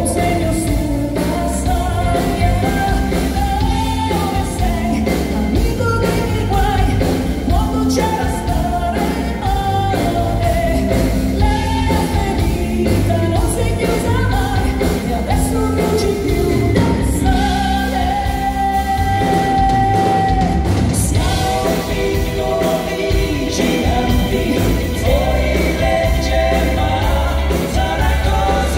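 A woman singing lead into a microphone with a live pop-rock band: drums, electric guitar and keyboards over a heavy, steady bass.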